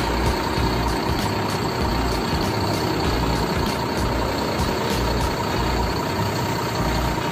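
Diesel engine of a Mercedes-Benz-chassis coach idling steadily, with an even low throb.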